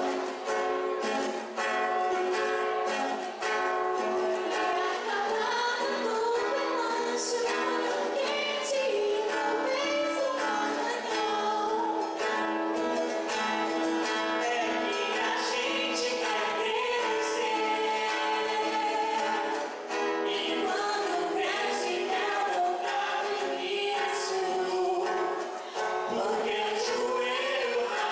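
Live acoustic music: a man and a woman singing into microphones, alternating and together, over an acoustic guitar.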